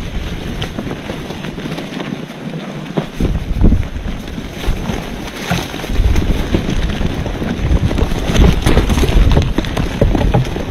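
Wind buffeting the microphone, gusting much harder about three seconds in and again from about six seconds, with scattered short clicks and knocks.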